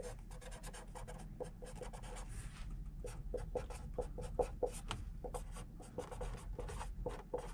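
Felt-tip marker writing letters on the painted steel top of a hot water tank: a quick, steady run of short, faint strokes.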